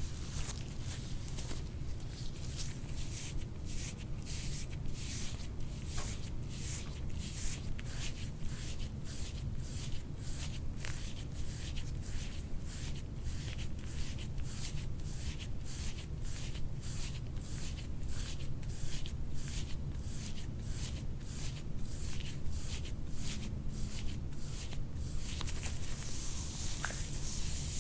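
Rhythmic swishing rubs of hands stroking over skin and clothing in soft-tissue massage, about two strokes a second, stopping near the end. A steady low hum runs underneath.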